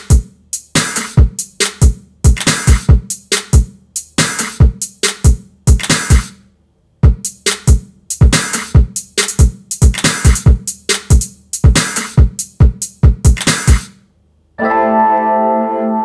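Two short R&B drum-machine beats made only of drum hits in a quick, uneven pattern. The first stops about six seconds in and the second starts a second later and stops near fourteen seconds. Then a held keyboard synth chord comes in.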